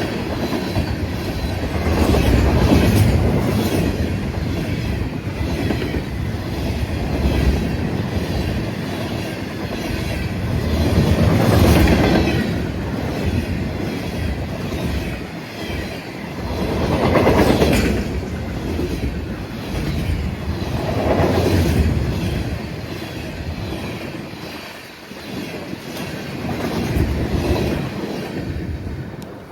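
Freight train rolling past, its cars' wheels clickety-clacking over the rail joints. The rumble rises and falls every few seconds, with a faint wheel squeal.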